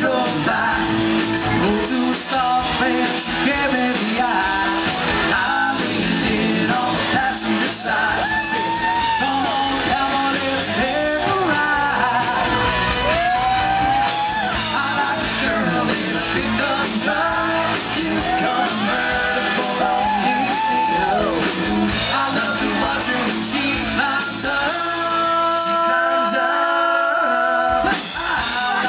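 Live country-rock band playing: electric guitars, bass and drums, with a voice singing over them, and some held notes near the end.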